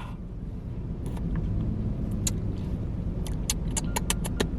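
Car engine's low, steady rumble heard inside the cabin, with a quick run of small sharp clicks near the end.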